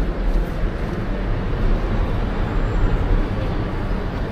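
Steady city street background noise: a continuous low rumble of traffic with no single event standing out.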